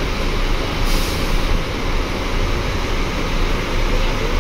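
Diesel coach engines idling close by, a steady low rumble, with a short hiss of air about a second in.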